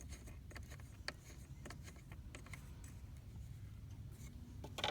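Light scattered clicks and taps from hands turning the knob of a battery disconnect switch on the negative battery terminal, with a sharper cluster of clicks near the end. A low steady rumble runs underneath.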